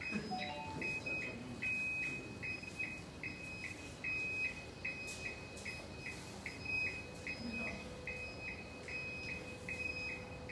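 An electric scooter's indicator buzzer beeping: a high electronic beep repeating evenly two or three times a second while the turn-signal lights flash. A faint steady hum comes in about eight seconds in.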